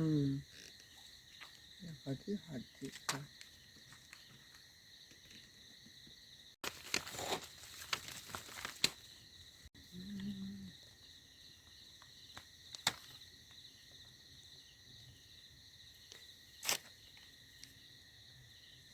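Night insects trilling steadily, with rustling and scattered clicks as a gill net is shaken and handled to free small fish, loudest about seven to nine seconds in. A few faint murmured words.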